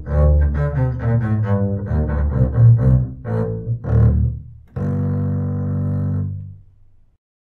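Double bass played with the bow: a run of short notes, then one long held note about five seconds in that dies away near the end. Heard through a pair of homemade pressure-zone (PZM) boundary microphones lying on the floor about ten feet away.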